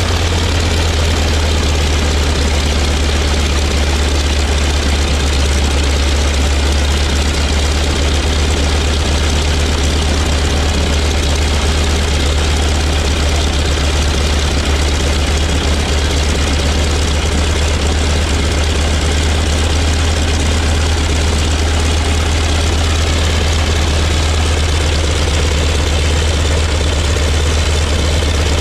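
Wright R-975 nine-cylinder radial engine of a Vultee BT-15 running steadily at low power on the ground, propeller turning, with a deep, even drone. It is being fed fuel by the hand wobble pump because the engine-driven fuel pump is defective.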